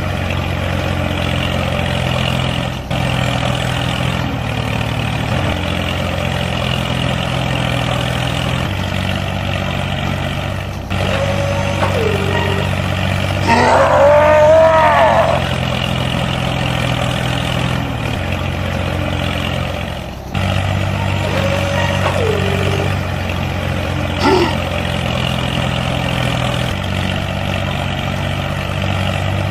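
The small motor of a homemade mini tractor running steadily, its hum changing slightly at a few points. About halfway through, a louder wavering cry rises over it for a couple of seconds.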